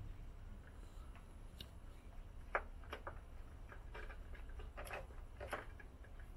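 Small metallic clicks and ticks of an Allen key and headset parts being handled on a Trek Domane's front IsoSpeed and headset, a few at irregular intervals, the sharpest about two and a half seconds in.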